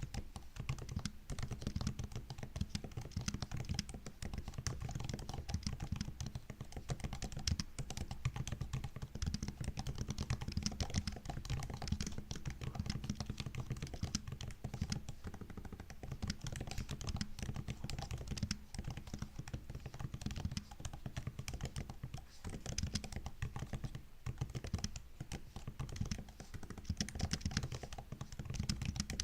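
Typing on a MacBook's built-in keyboard: a fast, continuous stream of soft key clicks and taps, thinning briefly about halfway through.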